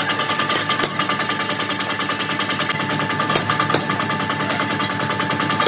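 Mechanical power hammer striking steel in a fast, even rhythm of many blows a second, over a steady machine whine.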